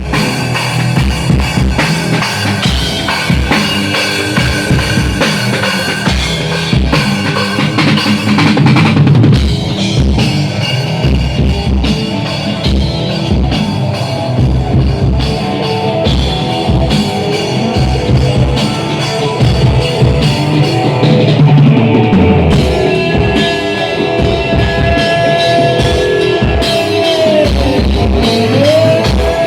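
A live band playing rock music, with a drum kit keeping a steady beat under guitar, at a sound check.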